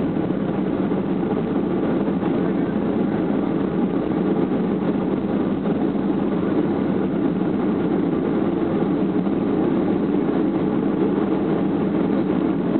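Steady cabin noise of a Boeing 757-200: engine and airflow noise heard from inside the cabin, even and unchanging.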